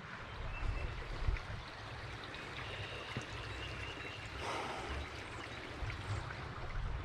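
Stream water running with a steady rush, over low bumping rumble on the microphone. There is a short louder puff about four and a half seconds in.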